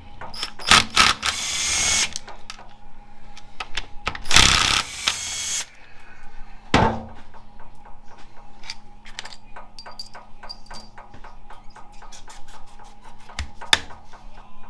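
Power tool run in two short bursts of about a second each, backing out bolts while the valve body of a 4L65E automatic transmission is taken off, then a sharp clack and light ticking of small metal parts being handled.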